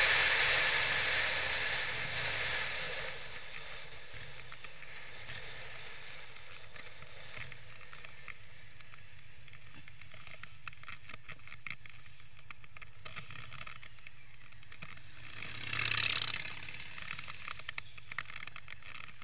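Wind rushing over a motorcycle-mounted camera's microphone, dying away over the first few seconds as the motorcycle slows. Then a low steady rumble with faint ticking, and a brief swell of rushing noise about sixteen seconds in.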